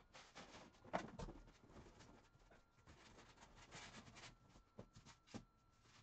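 Faint handling noises from assembling the parts of an electronic drum kit's rack: light rustling and clicks, with one sharp knock about a second in and two clicks near the end.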